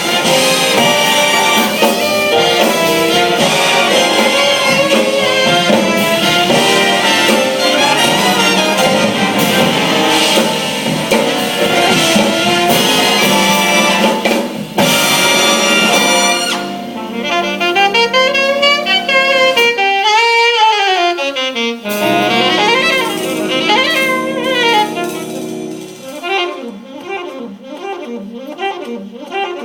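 Jazz band playing, with a saxophone solo. The full ensemble plays for about the first half; then a single saxophone line with bent, sliding notes carries on over lighter backing.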